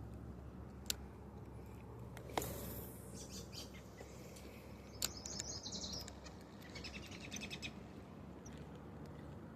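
A bird chirping in two quick runs of high notes over a steady low hum, with a few sharp clicks.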